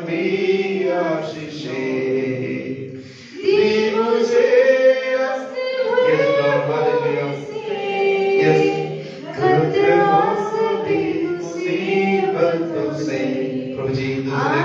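A man singing a Christian worship song unaccompanied into a microphone, in long held phrases, with a short pause about three seconds in.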